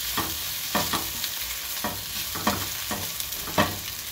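Sliced bell peppers, courgette and onions sizzling in hot oil in a stone-coated pan, stirred with a silicone spatula that scrapes the pan about every half second.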